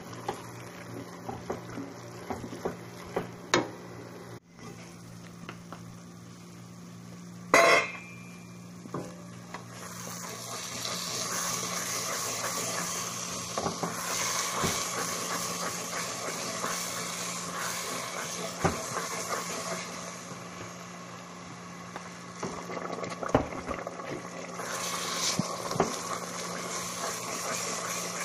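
Wooden spoon stirring a thick paste of onions and berbere in a stainless steel pot, scraping and knocking against the sides, with one loud knock about seven and a half seconds in. From about ten seconds in the paste sizzles, and it is being stirred steadily so the berbere does not burn. A steady low hum runs underneath.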